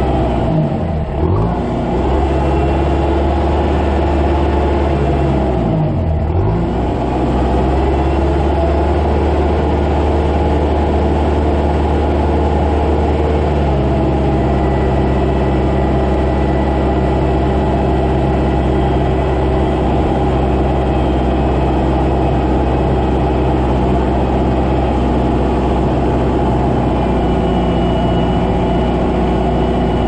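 Kubota compact tractor's diesel engine running steadily while plowing snow, its pitch dipping and recovering briefly twice in the first seven seconds.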